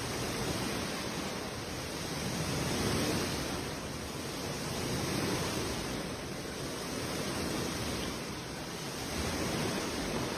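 Continuous rushing noise of a storm's wind and water, swelling and easing every two to three seconds.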